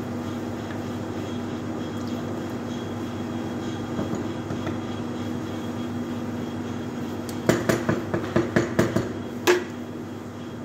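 Steady hum of kitchen fans, then about two seconds of quick, sharp clatter from cooking utensils being knocked, about eight knocks in a row, the last one the loudest.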